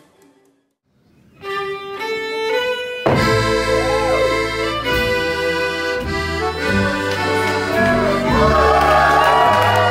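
Accordion-led folk-style music strikes up after about a second of near silence. A fuller accompaniment with low bass notes joins about three seconds in.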